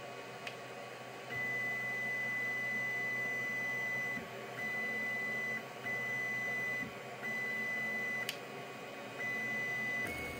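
Ender 3 3D printer's stepper motor whining at one steady high pitch in five stretches of about one to three seconds. Under it runs the steady hum of the printer's cooling fans, and there is a single sharp click about eight seconds in.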